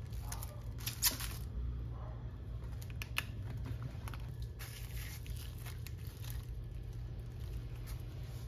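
Plastic cling wrap being pulled off its roll, torn and crinkled as it is stretched over a baking dish: a few short rips and crackles, the loudest about a second in, over a steady low hum.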